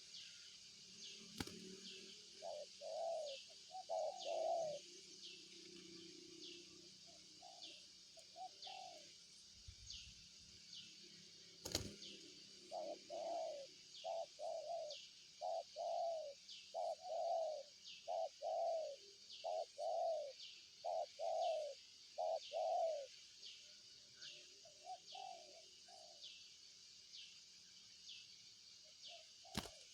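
Spotted dove cooing in repeated phrases of low, hooting notes, most continuous in the middle stretch. Throughout, a high, short chirp repeats steadily about every 0.7 seconds, with a few sharp clicks.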